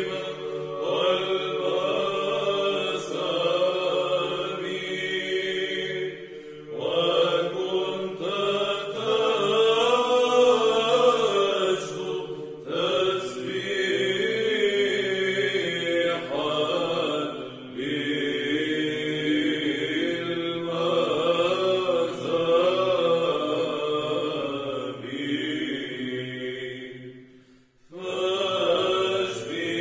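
Monks chanting an Arabic Byzantine troparion: a melody moving over a held low drone, sung in long phrases with short breaks about 7, 13, 17 and 28 seconds in.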